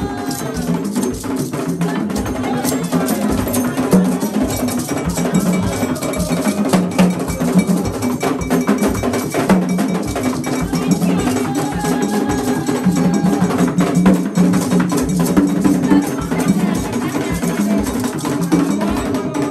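Haitian Vodou ceremonial drumming: tall hand drums with a struck metal bell keeping a steady, fast rhythm.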